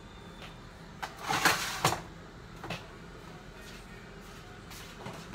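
Brief rustling clatter of kitchen items being handled about a second in, then a couple of light knocks, over a low steady room hum.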